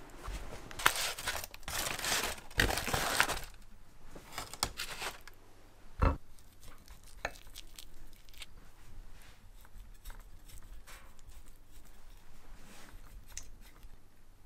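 Aluminium foil crinkling and tearing as it is peeled off a baked potato, then a single knock about six seconds in and scattered light clicks and taps.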